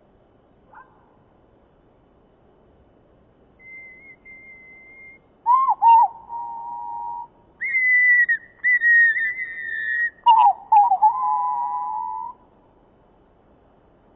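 A bird call slowed down, heard as long drawn-out whistled notes. A faint note comes about four seconds in, then three loud ones: a lower note, a higher one, and the lower again, each starting with a wavering slide and then held steady for one to two seconds.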